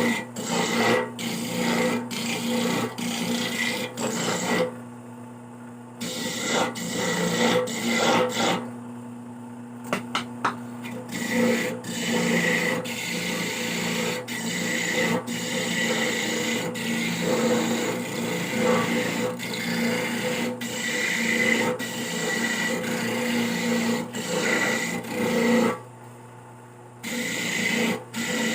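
Coconut meat being grated by hand on a bladed coconut grater (kayuran): a long run of repeated rasping strokes, roughly two a second, with a few short pauses.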